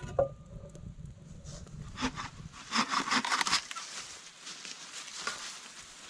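Dry wood crackling and snapping, with a quick run of sharp cracks about three seconds in.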